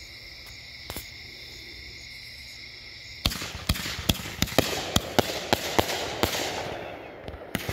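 A Dominator Purple Storm firework cake firing: after a few seconds of a steady high-pitched drone, a rapid run of sharp shots starts about three seconds in, two or three a second, over a crackling hiss as the purple-tailed shots go up.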